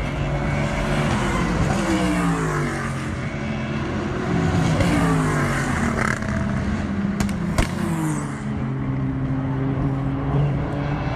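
Race cars at speed on a circuit, several engines revving up and down through the gears as they go by. Two sharp pops come about seven seconds in.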